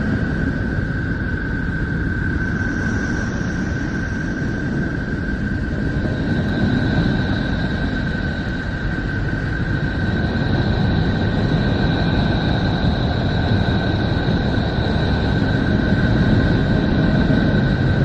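Space sound presented as the sound of Neptune, a sonification rather than a sound heard in air: a steady deep rumbling drone with a constant high whistling tone over it. A fainter, higher tone joins about six seconds in.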